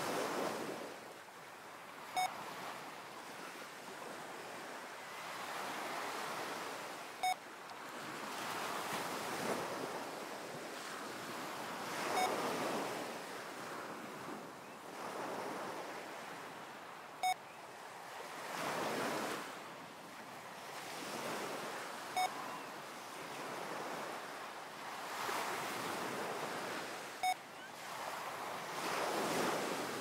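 Recorded ocean waves washing in and out in slow surges, with a short electronic beep every five seconds, six in all. The beeps mark the switch between breathing in and breathing out in a heart-coherence breathing exercise paced at six breaths a minute.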